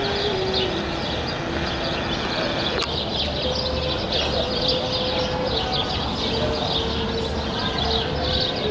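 Busy outdoor street ambience: a steady wash of traffic and people noise with birds chirping, and a series of long held notes that step up and down in pitch.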